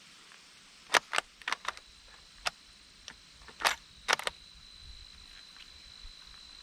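A quick series of sharp metallic clicks and clacks, about eight in three seconds, from handling a bolt-action rifle between shots. A faint steady high whine begins about halfway through.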